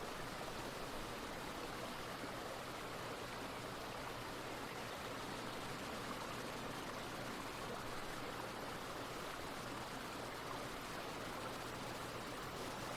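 Faint, steady running water of a brook, an even rushing with no change.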